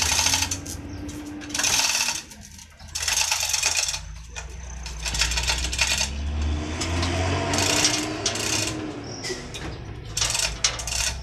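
Manual chain hoist lifting a truck engine: repeated bursts of chain rattling and ratchet clicking, each half a second to a second long, with gaps between the pulls, over a steady low hum.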